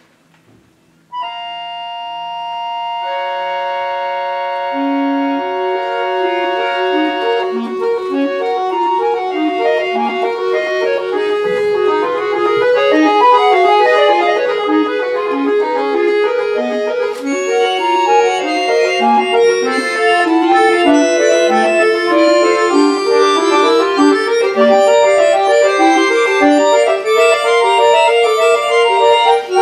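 Bayan (chromatic button accordion) playing solo: a held chord enters suddenly about a second in and builds as notes are added, then gives way to fast running passages of many short notes.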